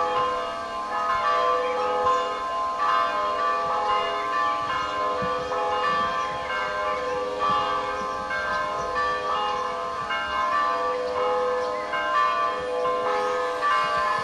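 Serbian Orthodox church bells ringing: several bells of different pitches struck in quick succession, overlapping and ringing on in a continuous peal.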